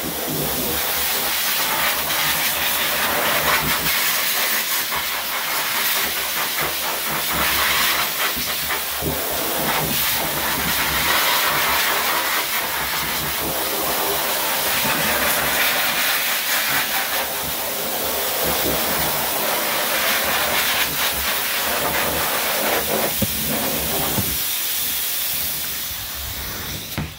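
Dog grooming blow dryer blasting air in a loud, steady hiss that swells and dips a little as it moves over the coat, then dies away near the end.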